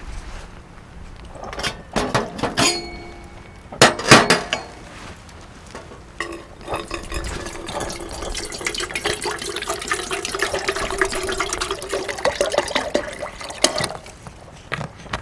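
A few ringing clinks of cookware, then liquid poured steadily into a vessel for about seven seconds, its pitch rising as the vessel fills.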